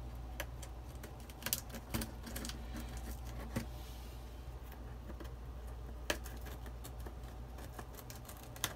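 Scattered sharp clicks and taps from a box being handled and opened by hand, over a steady low hum.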